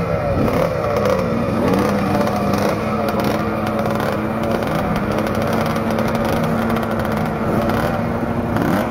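Several vintage racing motorcycle engines running together as the bikes roll slowly past, their pitches rising and falling, with one engine holding a steady note from a few seconds in.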